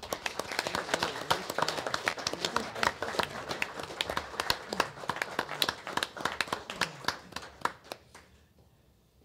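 A small audience applauding, a dense patter of handclaps that dies away about eight seconds in.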